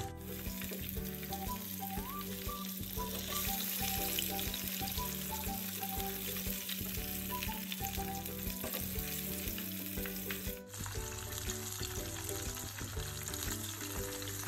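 Flour-coated chicken pieces deep-frying in hot oil, a dense, steady crackling sizzle of oil bubbling vigorously around the crust.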